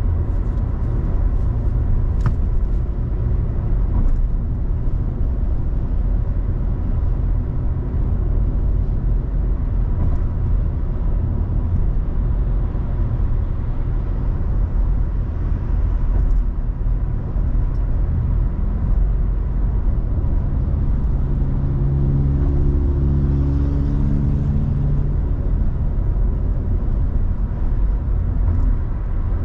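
Car driving along a road: a steady low engine and tyre rumble. A deeper pitched drone joins for about four seconds around two-thirds of the way through.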